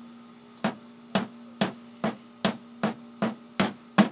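Hammer striking a nail, about two blows a second in an even rhythm, starting just under a second in, over a steady low hum.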